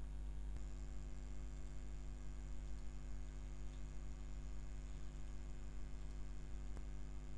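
Steady low electrical hum, mains hum picked up by the recording chain, in a pause with no speech. A faint click comes near the end.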